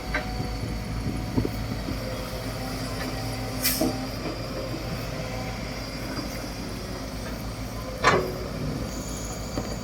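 Caterpillar 312B hydraulic excavator's diesel engine running steadily, with two short sharp noises from the machine, one a little under four seconds in and a louder one about eight seconds in.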